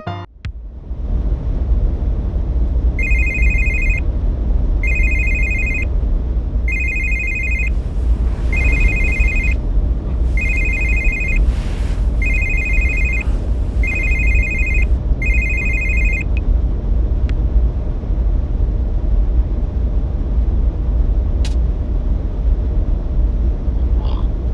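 A telephone ringing with a warbling electronic trill, eight rings of about a second each, nearly two seconds apart, over a steady low rumble.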